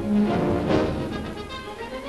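Orchestral background music on a newsreel soundtrack, loudest in the first second and easing off after.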